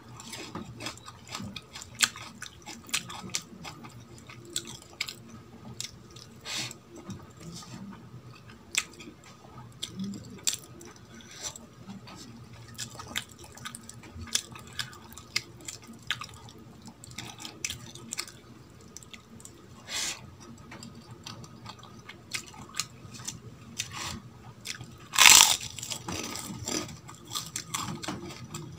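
Close-miked mouth sounds of a person eating dal and rice by hand: wet chewing and lip smacks, with one loud papad crunch near the end.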